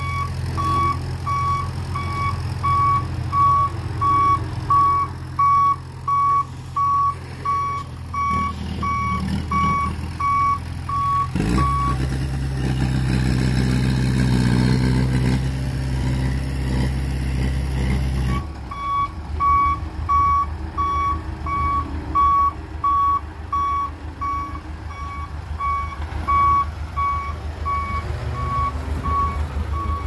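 Heavy earthmoving machinery: diesel engines running while a reversing alarm beeps about twice a second. Partway through, the beeping stops for about seven seconds while an engine runs louder under load. The beeping then resumes over a lower, rattling engine sound.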